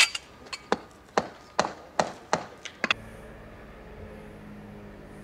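Concrete paving blocks clacking against one another as they are set by hand, about eight sharp knocks over three seconds. The knocks stop abruptly and a steady low hum remains.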